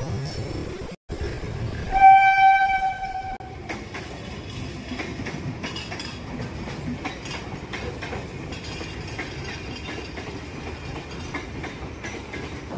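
A suburban electric local train (EMU) sounds one steady horn blast of about a second and a half, a couple of seconds in. The rumble and wheel clatter of its coaches running past continue after it.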